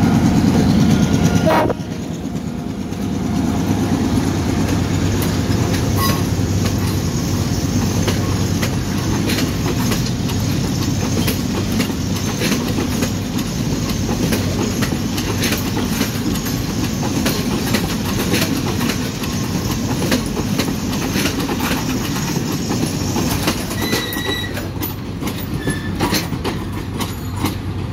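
Passenger train carriages rolling past close by: a steady low rumble with the wheels clicking over the rail joints.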